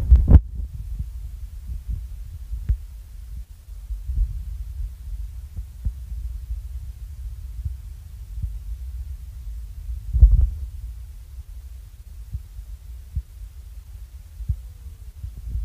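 Low, throbbing rumble of wind and handling on a phone's microphone, with scattered dull thumps; the loudest thumps come right at the start and about ten seconds in.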